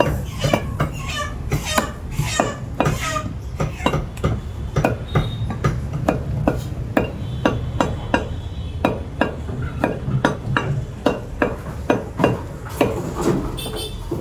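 Butcher's cleaver chopping mutton on the bone on a round wooden chopping block: a long series of sharp chops, about two a second, over a steady low hum.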